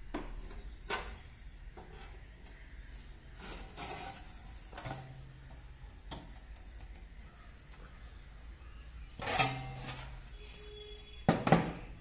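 Knocks, clatters and rubbing as a homemade wooden PC cabinet is handled and its side panels are swung open. The loudest clatters come about nine and a half and eleven and a half seconds in.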